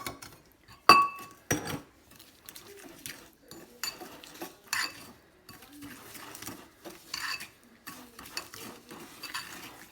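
A metal utensil stirring brown sugar and vanilla into melted butter in a bowl, scraping and clinking irregularly against the bowl, with one sharp ringing clink about a second in.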